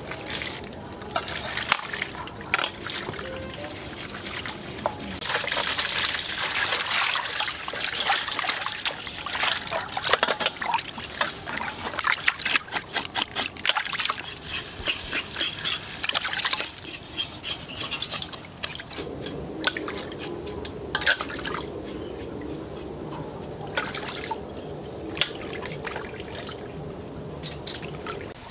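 Water pouring from a watering can into a large aluminium basin, then hands splashing and sloshing water while washing a small shark carcass in the basin, with many short splashes in the middle stretch.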